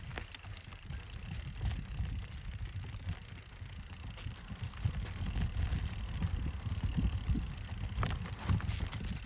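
Mountain bike riding over a trail: a steady low rumble with scattered clicks and knocks from the bike rattling over the ground, a little louder in the second half.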